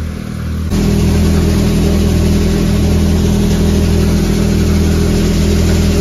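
Tractor-driven threshing machine running steadily under load: a constant engine drone under a dense rush of threshing noise. It comes in suddenly and loud just under a second in.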